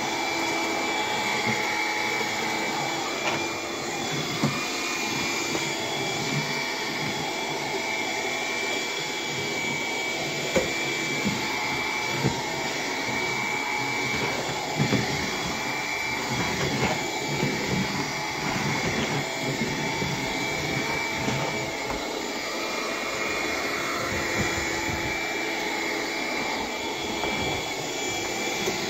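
Bissell PowerGlide cordless stick vacuum running steadily on low power over a hard floor, its motor giving a continuous hum with a thin high whine on top, a weird higher-pitched noise that sounds like a clog. A few short clicks stand out over the motor.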